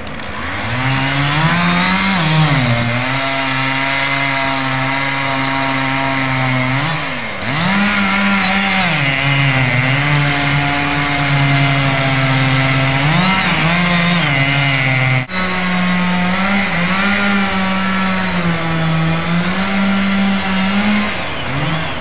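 Two-stroke chainsaw cutting into a thick tree trunk near its base. The engine revs high, then its pitch sags each time the chain bites into the wood, several times over, with a brief break about two-thirds of the way through.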